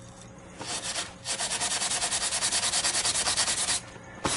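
Coarse metal scouring sponge scrubbing a zinc plate in quick, even strokes, about ten a second, after a short first scrape. It is scouring the dark surface deposits off the zinc electrode after its soak in pool acid.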